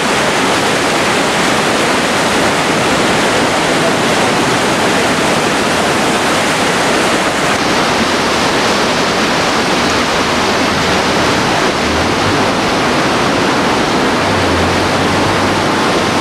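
Loud, steady rush of floodwater pouring through the open sluice gates of a river barrage, the river running above its capacity.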